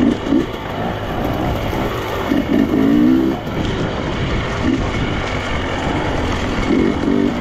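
Motorcycle engine running while the bike is ridden off-road, its note rising and falling in short stretches over a steady rush of rumbling noise.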